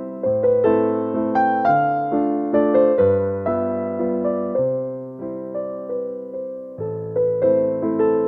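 Background piano music: notes struck about twice a second and left to ring out, over low bass notes that change every second or two.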